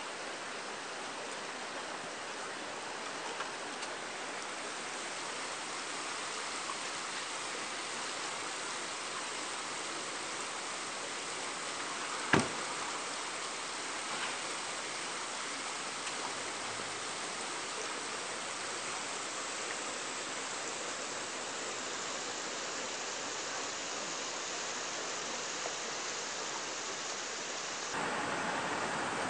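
Steady rushing hiss of water flowing in a concrete-walled urban river, with one sharp click about twelve seconds in.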